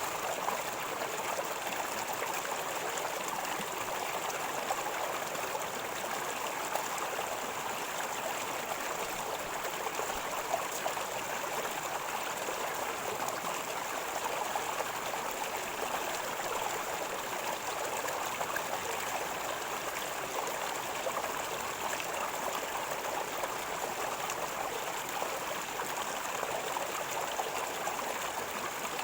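River water gurgling and flowing steadily, an even rushing sound without pauses.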